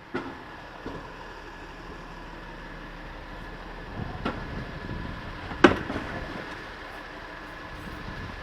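City street traffic noise, a steady hum with a few sharp knocks or clacks in it; the loudest knock comes about five and a half seconds in.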